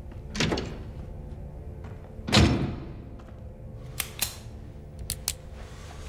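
Film soundtrack: a low music drone under a soft thud, then a single loud muffled bang about two and a half seconds in that rings briefly, followed by a few sharp clicks.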